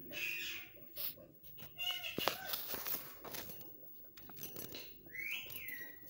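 Rose-ringed parakeets calling, with short squawks at the start and through the middle and a longer call that rises and falls near the end, mixed with wing flapping.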